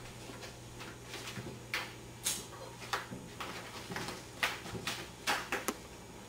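Irregular footfalls and knocks from people moving about on a hardwood floor, over a low steady hum.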